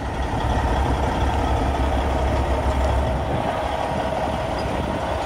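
Kenworth semi truck's diesel engine running steadily with a low rumble.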